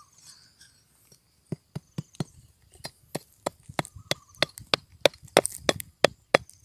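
Flat steel blade striking and prying at shale rock: a run of sharp knocks and cracks that starts about a second and a half in and comes quicker and louder toward the end.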